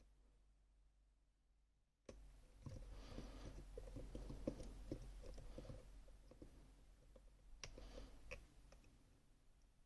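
Faint, irregular small clicks and taps from handling a Rosengrens 32A81H lock and its metal parts, starting a couple of seconds in and thinning out near the end.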